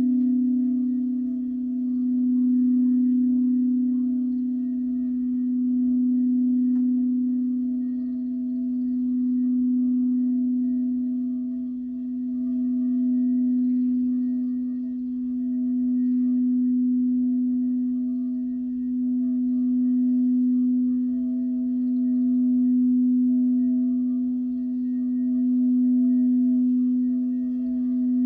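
Crystal singing bowl sounding one steady, sustained low tone with fainter overtones, swelling and easing in loudness every few seconds.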